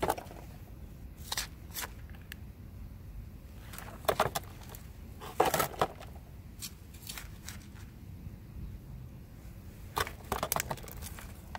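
Hand scoop scraping up damp garden soil and tipping it into a plastic planter: a few separate bursts of scraping, rattling and soft knocks, the loudest around the middle.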